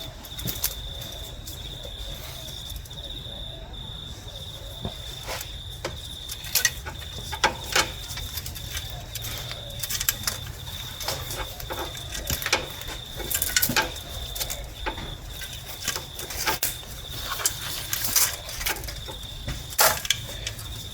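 Irregular metallic clinks and knocks of tools and engine parts being handled during a head gasket installation on a Nissan QG18DE engine, with a steady high cricket chirp in the background.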